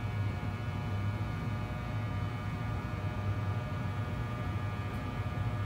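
Steady electrical hum: a low drone with a layer of fainter, higher steady tones above it, holding level throughout.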